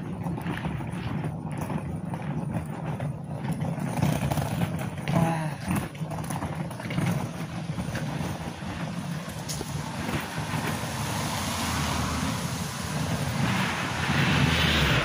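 Street traffic: a motor vehicle goes by, its noise building over the last few seconds to its loudest near the end, over a steady low rumble.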